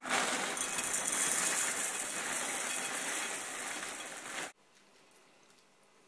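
Dry hoop-shaped cereal poured from a box into a bowl: a dense, continuous rattle of the pieces landing, which starts suddenly and stops abruptly about four and a half seconds in.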